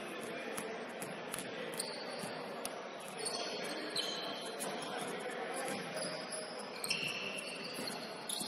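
Basketball shoes squeaking on a hardwood court: several short, high squeaks from about two seconds in, over the steady background sound of a gym game with scattered light taps.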